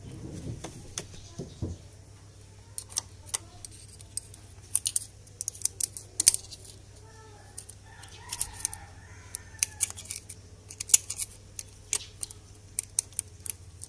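Sharp, irregular metallic clicks and taps of a thin hand tool working against exposed motorcycle engine parts, at times several in quick succession.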